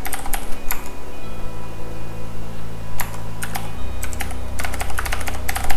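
Computer keyboard typing a password: a short run of key clicks at the start, then quicker runs of clicks through the last three seconds.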